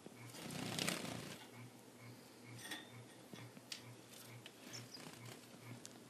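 Small caged finches giving a few short, soft chirps, with a brushing rustle about a second in and scattered light clicks. A faint low pulsing, about twice a second, runs underneath.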